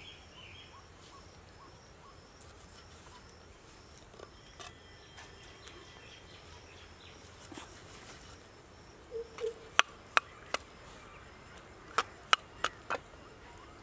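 Kitchen knife chopping through pomfret fish onto a wooden board: about eight sharp knocks in the last four or five seconds. Before them, only faint insect and bird chirping.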